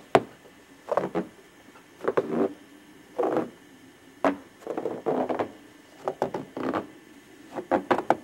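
Footsteps crunching and compacting fresh snow, roughly one step a second, unevenly spaced.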